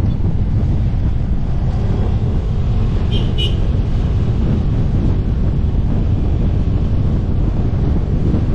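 Wind buffeting the microphone of a motorcyclist on the move, a steady loud rumble mixed with vehicle noise. Two short high chirps sound about three seconds in.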